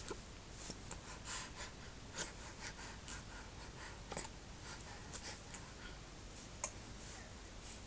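Faint breathing and rustling, with one short, sharp hiccup about six and a half seconds in.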